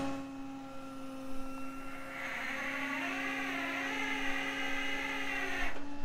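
Steady mechanical whine from the rollback tow truck's running hydraulic drive. A higher, wavering whine joins about two seconds in and stops just before the end.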